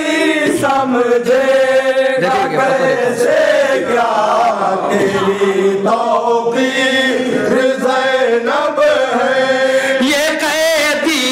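A group of men reciting an Urdu manqabat (devotional praise poem) in chorus, a continuous melodic chant sung into a microphone.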